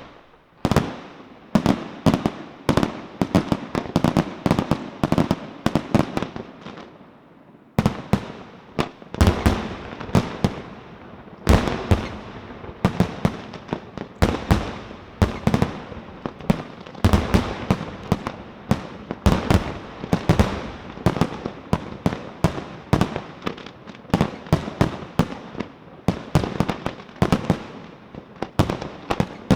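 Fireworks display: a rapid, continuous barrage of aerial shell bangs and crackling reports, several a second, with a fresh, denser volley starting abruptly about eight seconds in.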